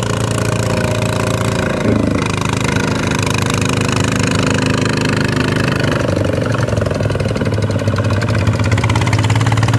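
Kubota ZT155 single-cylinder diesel engine on a walk-behind tractor running steadily under load while puddling a paddy, its pitch shifting slightly about two seconds in and again about six seconds in. The engine cannot reach full revs because a nut on the throttle stops the throttle lever.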